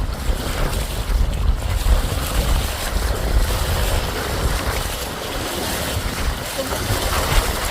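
Wind buffeting the microphone over water rushing and splashing along the hull of a paraw, a double-outrigger sailboat, under sail.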